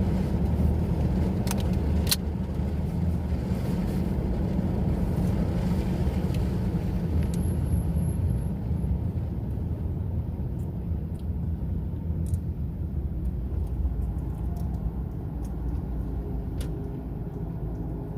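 Steady low engine and road rumble heard from inside a moving vehicle, with a few faint clicks early on.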